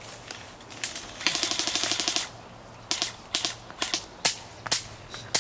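Airsoft guns firing: a rapid full-auto burst lasting about a second, then a string of scattered single shots.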